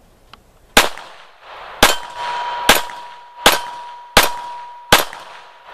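Six pistol shots from a Glock 43 9mm, fired at a steady pace a little under a second apart, each with a short echoing tail. A steady ringing tone sounds from the second shot through the last.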